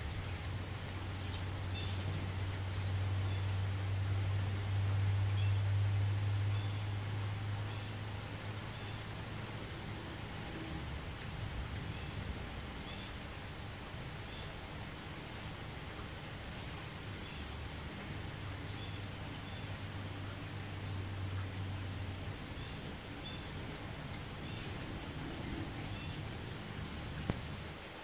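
Ruby-throated hummingbirds giving short, high squeaky chips and chatters scattered throughout, the aggressive calls of birds chasing each other off a feeder. A low hum swells and fades under them, strongest for the first several seconds and again about two-thirds of the way through.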